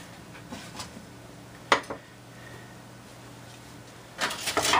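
Plywood insert plates handled on a wooden workbench: one sharp wooden knock a little over a third of the way in, then a quick run of clacks and knocks near the end as a plate is picked up.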